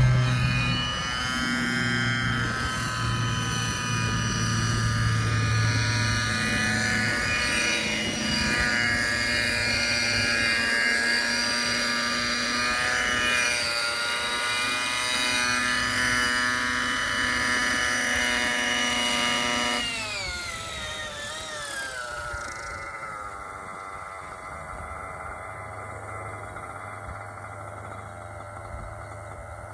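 Nitro RC helicopter (Synergy N5C with an OS 55HZR glow engine) running at a steady, governed headspeed, its engine and rotor tones holding level. About two-thirds of the way through the sound falls in pitch and level over a few seconds as it is throttled down after landing, leaving a quieter steady tone.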